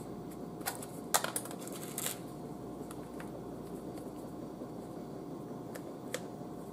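A few light plastic clicks and taps as an onion powder spice bottle is opened and a plastic measuring spoon scoops from it, over a faint steady hum.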